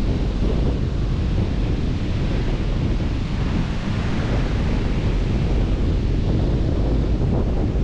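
Wind buffeting an action camera's microphone while the bike rides along: a steady, loud rumbling noise.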